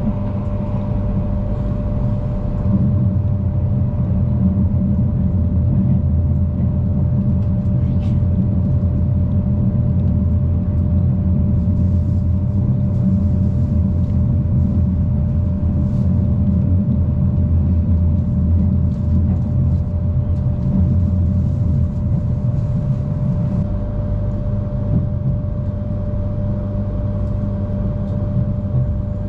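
Passenger train running at a steady speed: a steady low rumble with a constant hum over it.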